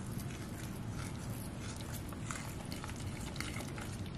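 A fork stirring thick pancake batter in a large bowl, soft and quiet, with a few faint clicks of the fork against the bowl.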